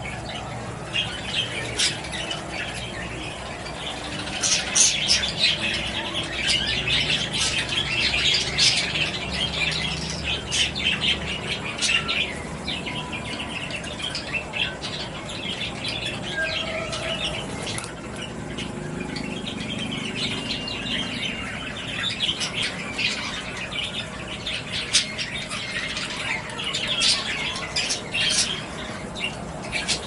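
Captive budgerigars and cockatiels chattering and chirping together in an aviary, a dense stream of short calls and warbles broken by sharper squawks, busier in spells.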